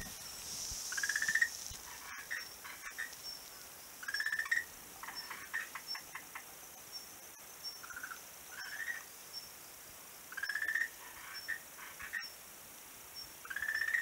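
Frogs calling: a rising, pulsed croak repeated every three to four seconds, each followed by a short run of clicking notes.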